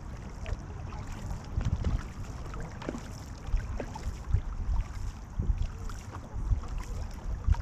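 Paddles of a multi-person canoe crew dipping and pulling through calm water, with irregular small splashes and drips, over a steady low rumble of wind on the microphone.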